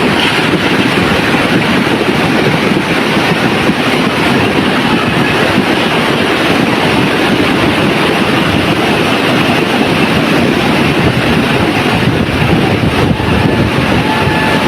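Steady, loud roar of storm water, the even rush of a torrential downpour and flood runoff.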